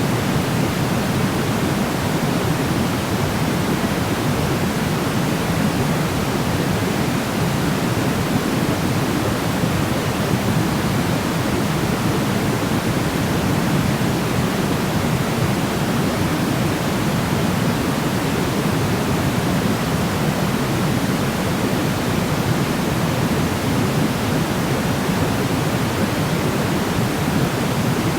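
Steady synthetic noise for sleeping: an even, constant hiss with more weight in the low tones than the high, unchanging throughout.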